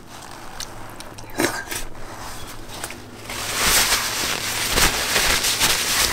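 Close-miked eating sounds: a few soft bites and clicks. About three seconds in, a loud, dense crackling and rustling starts as food is handled and eaten.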